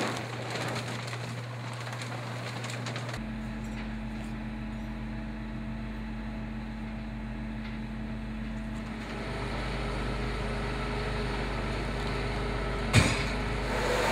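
Steady hum of running machinery with fixed tones, switching abruptly about three seconds in to a deeper, steadier hum, with one sharp click near the end.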